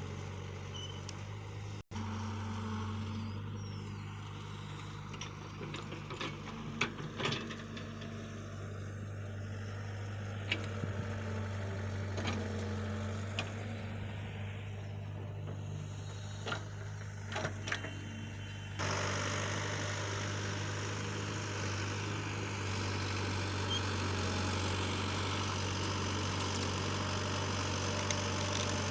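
Heavy engine idling steadily, with scattered clanks and knocks over it for a while.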